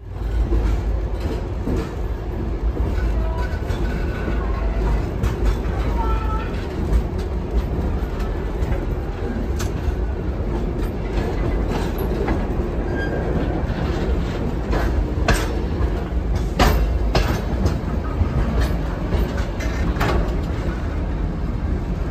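Passenger train carriages rolling slowly along the track, heard from an open carriage window. A steady low rumble runs throughout, with several sharp clicks and clanks from the wheels and couplings in the second half.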